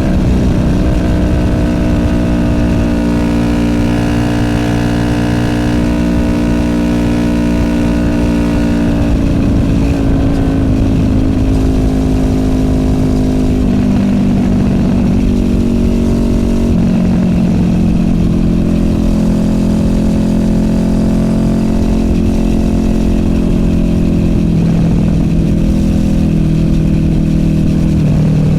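Honda VFR800F's V4 VTEC engine through an SC Project Conic aftermarket exhaust, running while the bike is ridden. The engine note holds steady, then drops in pitch about nine seconds in and again around seventeen seconds.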